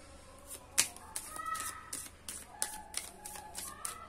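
Tarot cards being shuffled and handled: a run of light clicks and snaps, the sharpest just under a second in. Short held calls, like a bird's, sound a few times in the background.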